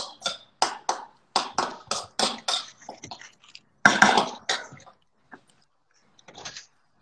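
Spoon stirring diced raw fish and chilli in a ceramic bowl: a run of short wet scraping strokes, about three a second, for the first three seconds, then a louder stroke about four seconds in, and only a few faint clicks after.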